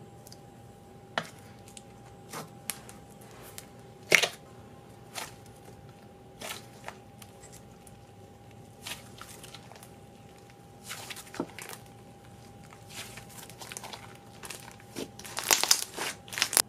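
Hands squishing, stretching and kneading a soft clay-texture slime, giving scattered sticky clicks and pops. A denser run of crackling squelches comes near the end.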